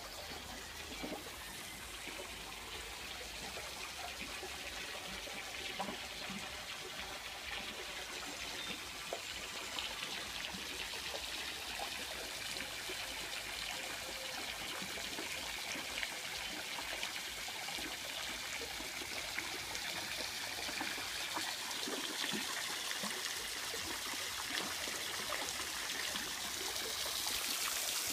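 Steady trickle of water falling into a garden pond from its water feature.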